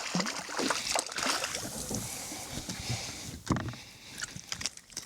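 Water splashing and sloshing at the side of a fishing kayak as a hooked speckled trout is brought in, with scattered knocks and rattles from handling, the sharpest about three and a half seconds in.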